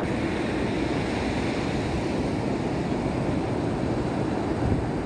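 Sea surf washing onto a sandy beach, a steady rush of waves, with some wind noise on the microphone.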